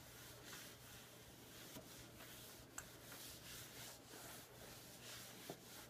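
Faint rubbing of a cloth wiping a wooden floor in repeated strokes, over a low steady hum.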